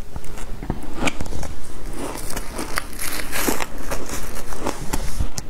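Shaved ice being chewed and crunched in the mouth: a steady run of irregular crackling crunches, densest a little past halfway.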